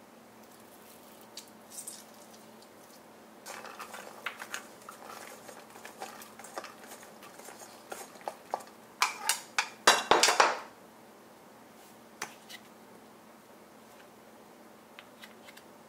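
Kitchen utensil clatter: a large spoon clinking and scraping against a bowl as cut long green beans are scooped and tipped into a clay mortar. Light scattered taps and clicks build to a dense burst of clatter about two-thirds of the way through, then a few single clicks.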